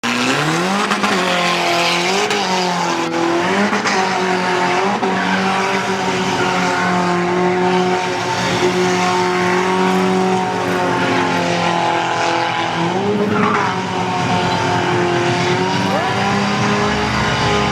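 Car engine held at high revs in a burnout, its pitch rising several times in the first few seconds and again about thirteen seconds in, with the tyres squealing as they spin.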